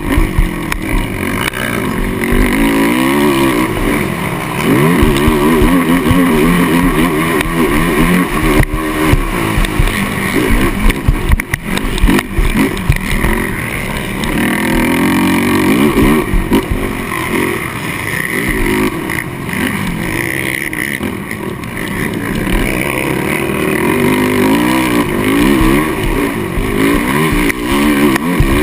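Kawasaki KFX450R quad's single-cylinder four-stroke engine at race pace, revving up and falling back again and again as the rider works the throttle and gears.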